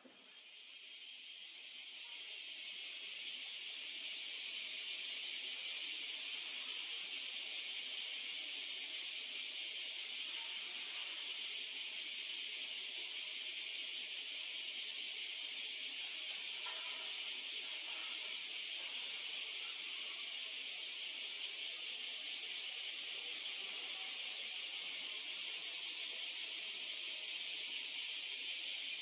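A dense, steady chorus of cicadas, a high, unbroken shrilling that swells in over the first few seconds and then holds level.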